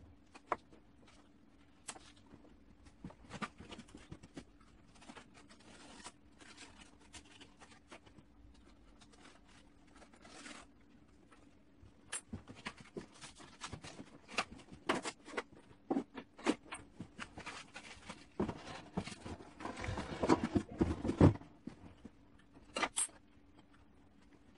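Workshop handling sounds: scattered sharp clicks and knocks of tools and materials set down and moved on a workbench, over a low steady hum. Near the end a denser stretch of rustling and scraping, the loudest part, then a few more clicks.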